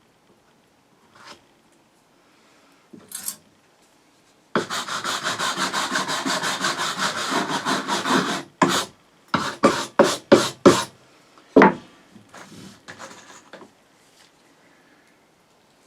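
A hand tool worked back and forth on wood: a run of fast, even scraping strokes for about four seconds, then half a dozen slower separate strokes and a last single one.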